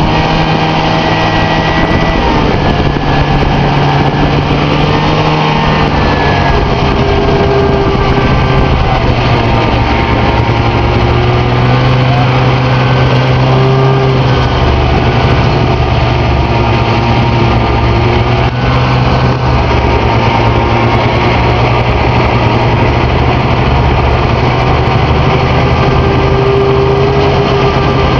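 Snowmobile engine running under way, loud and steady, its pitch shifting a few times, near two seconds in and again around six seconds.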